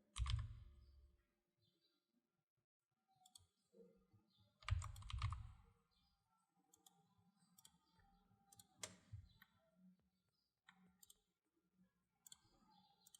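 Faint, scattered computer keyboard taps and mouse clicks, a few seconds apart, over near silence.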